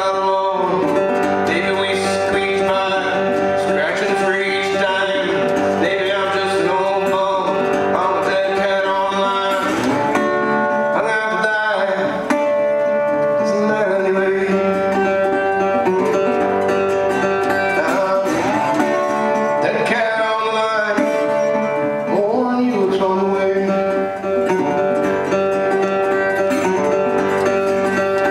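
Solo acoustic country-blues guitar played fingerstyle: steady droning bass notes under higher notes that bend and slide.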